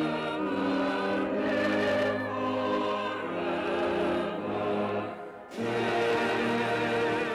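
Choir singing held chords with instrumental accompaniment, the voices wavering with vibrato; a brief break between phrases about five and a half seconds in.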